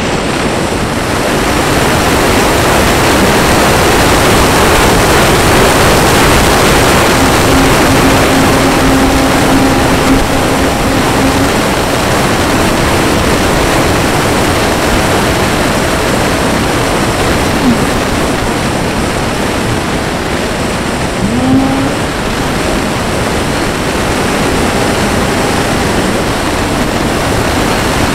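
Steady rush of airflow over the onboard camera mixed with the electric ducted fan of a Freewing Mirage 2000 RC jet in fast flight. Two brief chirps come later on.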